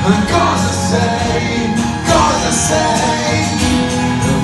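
Unplugged rock band playing live: acoustic guitars with percussion and a male voice singing.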